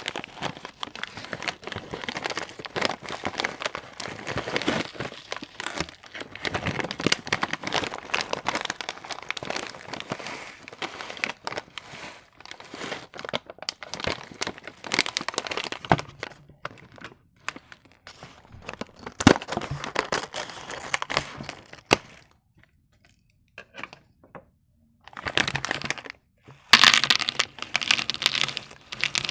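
Plastic and foil candy wrappers crinkling and tearing as sweets are unwrapped, with sharp crackles and clicks. There is a pause of a few seconds near the end, then louder crinkling.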